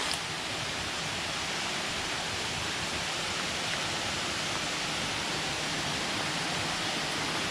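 Water falling over a dam, a steady rushing.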